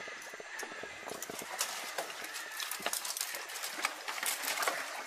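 Outdoor field ambience: many irregular small clicks and light rustling over a faint steady hiss.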